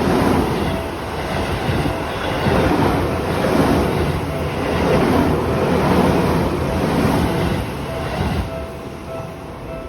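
Train running past a level crossing: a loud, steady rumble and rush that eases off near the end, with the crossing's warning bell heard faintly as a repeating ding.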